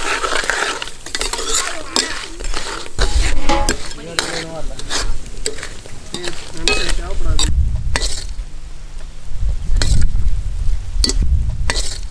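Ladle stirring and scraping in a pot of palm jaggery melting in a little water as it boils down into syrup, with repeated irregular scraping strokes.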